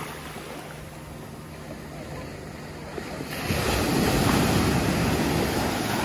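Small surf at the water's edge: a low wash of water, then about three and a half seconds in a wave breaks and rushes up the sand, the loudest part.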